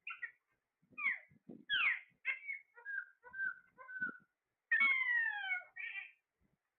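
A parrot calling and whistling in a string of short chirps and pitch-gliding notes, with three alike short whistles in a row, then one long falling whistle about five seconds in.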